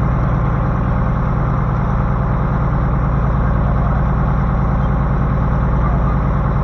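A boat's engine running steadily under way, an even, deep drone that does not change.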